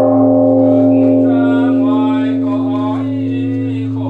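Great Vietnamese temple bell (đại hồng chung), a large bronze bell, ringing just after a strike, its deep steady hum slowly fading. A male voice chants over the ringing.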